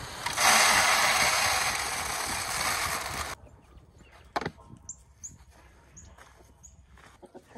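Chicken feed poured from a sack into a plastic feed silo: a steady rushing hiss for about three seconds that stops suddenly, then a single clack about a second later as the silo's lid is shut.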